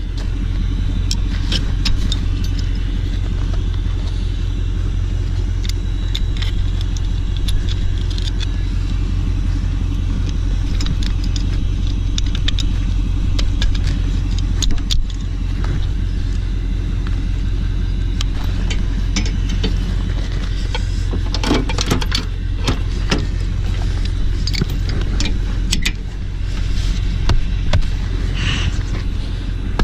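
Ford pickup truck engine idling steadily, with scattered metallic clinks and jangles of the trailer hitch gear as the truck is hooked to the trailer.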